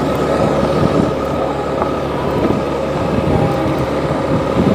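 A motor vehicle's engine running steadily, heard from on board while riding, with a steady whine over a low rumble.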